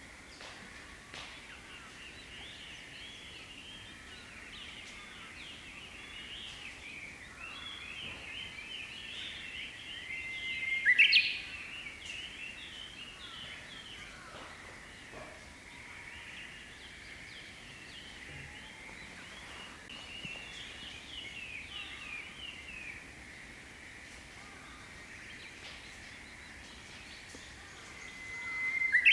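Japanese bush warbler singing its hoo-hokekyo song twice, about eleven seconds in and again at the end: each time a held whistle that breaks into a quick, loud flourish. Other small birds twitter and chatter steadily throughout.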